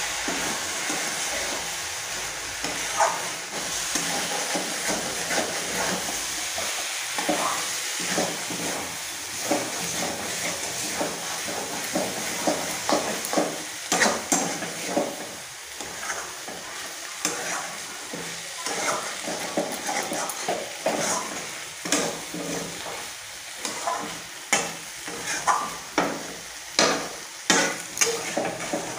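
Metal spatula scraping and stirring cabbage and potatoes around a metal kadai while the food sizzles in the oil. The scraping strokes come thicker and sharper near the end.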